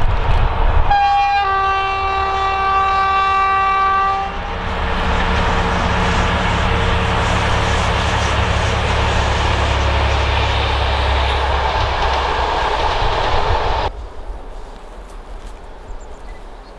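Fiat-engined SU45 diesel locomotive sounding its horn about a second in, a brief high note and then a lower chord held for about three seconds. The locomotive and its coaches then run on with a steady rumble, which cuts off sharply near the end and leaves a faint outdoor ambience.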